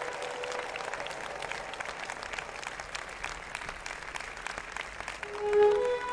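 Audience applauding with dense, irregular clapping. Near the end, music comes in with a few held notes and the sound gets louder.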